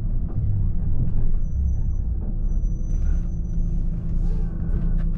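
A 2005 Volvo B12B coach's 12-litre six-cylinder turbo diesel running at low speed, a steady low rumble heard from the driver's cab. A faint high whine sounds for a couple of seconds, and a few short hisses come about midway.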